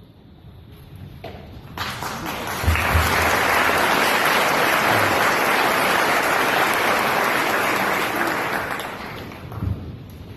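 Audience applauding, swelling about two seconds in, holding, and dying away near the end.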